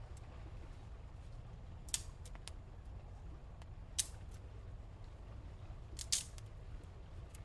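A few short, sharp clicks or taps over a low steady background rumble: three close together, one more, then a louder double click near the end.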